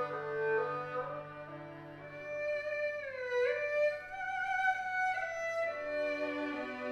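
An ensemble of four erhu and a cello playing a slow melody in sustained bowed notes, with a pronounced downward slide in pitch about three seconds in. A low held note drops out partway and comes back near the end.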